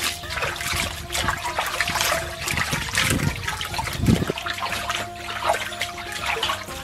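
Water sloshing and trickling in a stainless steel bowl as a large slab of raw beef ribs is rubbed and rinsed by hand, with irregular splashes.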